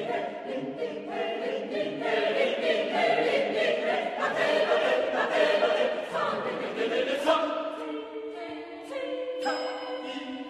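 A twelve-voice mixed chorus sings a quick run of short, clipped syllables that imitate Chinese gong-and-drum patterns. From about eight seconds in, it settles into held chords.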